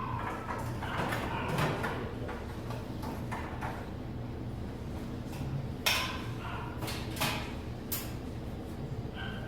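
Clatter and sharp knocks of hard parts being handled during air-conditioner disassembly, three louder knocks near the end, over a steady low hum.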